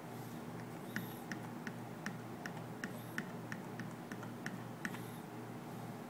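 Push button on a Honeywell digital thermostat clicking about a dozen times, about three clicks a second, as the setpoint is stepped up. A steady low hum runs underneath.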